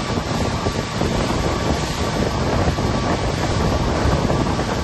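Steady rush of wind buffeting the microphone and water churning past a moving boat at sea.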